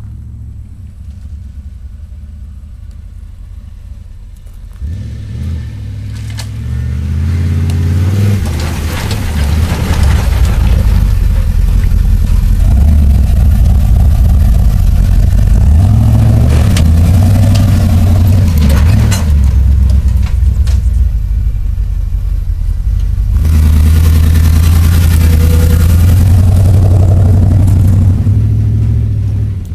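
Lifted Dodge Ram pickup with a big-camshaft engine, driven off-road. The engine runs low at first, revs up about five seconds in and runs loud and under load, eases off briefly around twenty seconds, pulls hard again, then drops off near the end.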